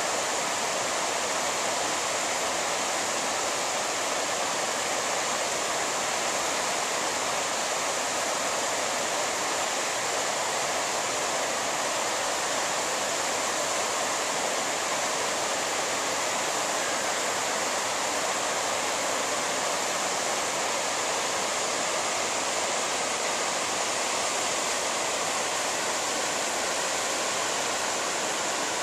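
Whitewater river rushing over boulders in rapids: a steady, unbroken wash of water noise.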